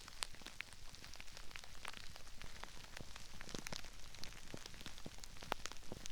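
Crispy puffed rice crackling and popping: a dense, irregular scatter of small sharp snaps over a faint hiss, recorded binaurally so the pops seem to come from all around.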